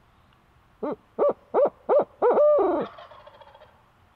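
Barred-owl hooting: five short hoots in quick succession, then a longer drawn-out final hoot that trails off faintly.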